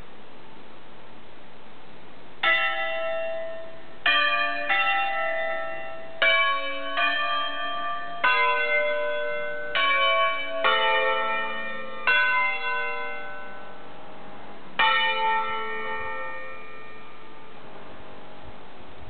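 Five Ambrosian-system church bells cast by Roberto Mazzola in 1952, tuned A, B, C-sharp, D and E, rung 'a concerto' by hand on an electric drive: about ten strokes at uneven spacing play a tune. The strokes start a couple of seconds in and stop about fifteen seconds in, and the last notes ring out.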